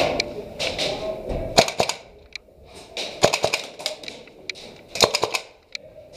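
Airsoft guns firing in several short bursts of rapid, sharp clicks, the densest runs about three and five seconds in.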